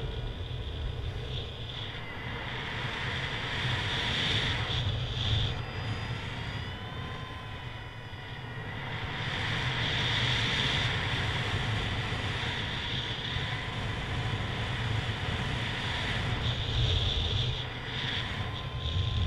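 Wind rushing over the camera microphone in paraglider flight: a steady low rumble and hiss that swell and ease every few seconds, with faint thin whistling tones.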